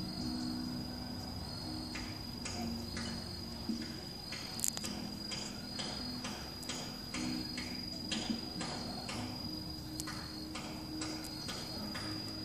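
Insects chirping: a steady high trill, joined from about two seconds in by a rhythmic series of sharp clicking chirps, roughly two a second.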